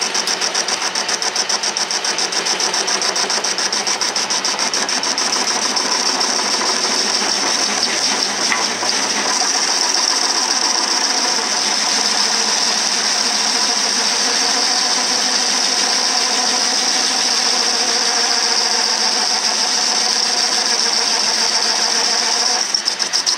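A 10-inch Logan metal lathe running under power feed while a high-speed steel tool bit cuts a steel part. It makes a steady high whine over a fast, even mechanical clatter.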